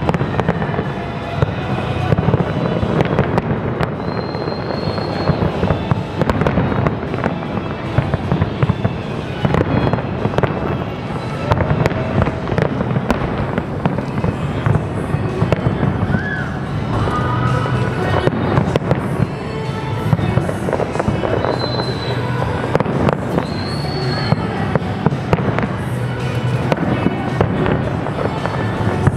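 A large aerial fireworks display with shells bursting in rapid, unbroken succession: many bangs and crackles overlapping, with music playing underneath.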